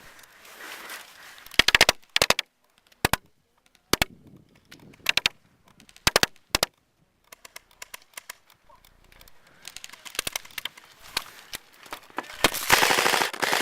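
Airsoft guns firing short bursts and single shots, with quick runs of sharp clicks every second or so. Near the end comes a louder, longer stretch of rapid fire.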